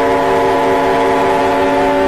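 Air-raid siren sounding a loud, steady held pitch.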